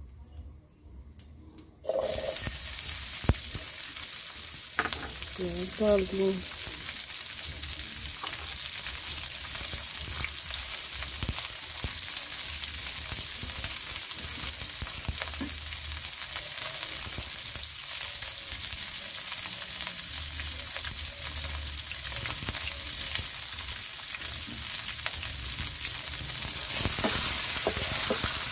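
Sliced onions hit hot ghee and cumin seeds in a non-stick frying pan and start sizzling about two seconds in, a steady loud hiss as the tadka fries. Near the end a wooden spatula stirs them through the pan.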